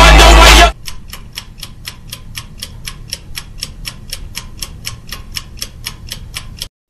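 Loud, distorted shouting that cuts off abruptly under a second in, followed by a steady clock-ticking sound effect of about five quick ticks a second.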